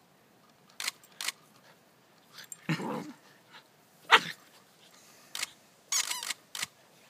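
A nine-week-old golden retriever puppy playing with a rubber squeaky ball: a string of short, sharp squeaks from the ball and puppy yips as it pounces and bites, the loudest about four seconds in.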